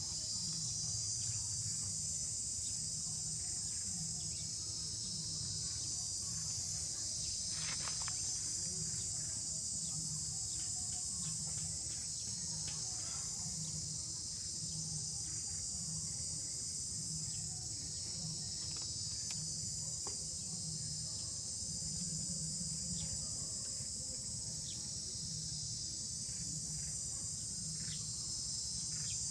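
A steady, high-pitched insect chorus drones without a break, with a low rumble underneath and scattered faint short chirps or clicks.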